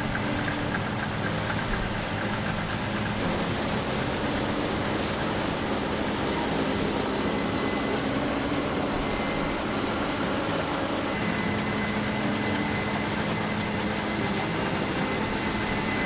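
Case IH 7120 combine harvesting wheat, its engine and threshing machinery running steadily with a low hum. A high steady whine becomes stronger about eleven seconds in as the combine comes close.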